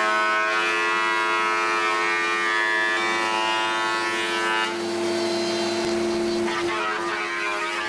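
Combination machine's surfacer running, its cutter block planing a bowed and twisted oak board flat: a loud whine with many overtones while the board passes over the cutters for about four and a half seconds, dropping back to the motor's steady hum, then cutting again near the end.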